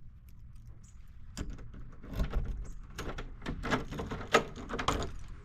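Irregular clicks, knocks and light rattles of things being handled, starting about a second and a half in and growing busier.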